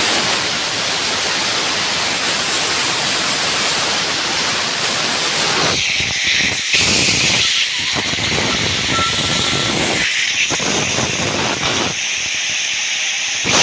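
Compressed air hissing from a blowgun in long blasts with a few short breaks, blown through a high-pressure fuel pump to clear the clog in its passages.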